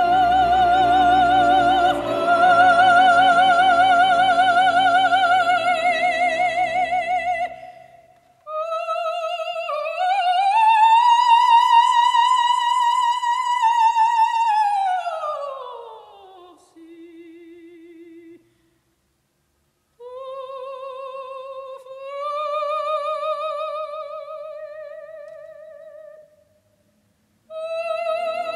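Operatic soprano singing long high notes with a wide vibrato, over soft orchestral accompaniment in the first few seconds. Midway a long high note swells and then slides down, and the voice breaks off for brief pauses before the end.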